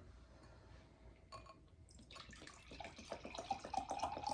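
Mango juice drink glugging as it is poured from a large can into a cup, starting about two seconds in and growing louder.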